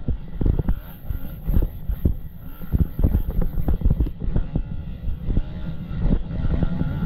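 Enduro motorcycle engine revving up and down while riding, with many irregular knocks and thumps and wind buffeting on the microphone.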